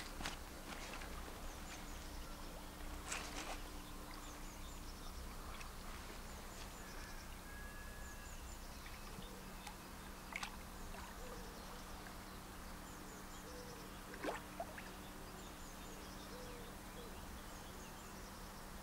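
Quiet waterside ambience with a few soft, separate splashes and sling rustles as a large carp is slid out of a wet retention sling back into the lake. Faint birds chirp in the background.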